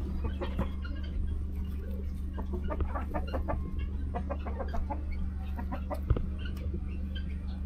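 Chickens clucking, short calls coming in quick runs, over a steady low hum.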